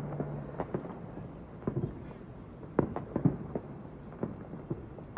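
Distant fireworks going off across a town: a scatter of irregular sharp pops and crackles, with the densest clusters around the middle.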